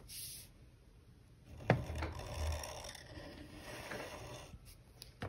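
Black Sharpie marker drawing on paper: a faint, intermittent scratching rub of the felt tip on the sheet, with one sharp tap a little under two seconds in.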